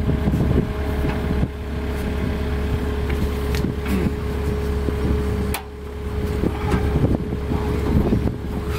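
Kubota compact tractor's diesel engine idling steadily, holding its loader bucket raised, with a few short knocks as the washing machine is shifted on the deck.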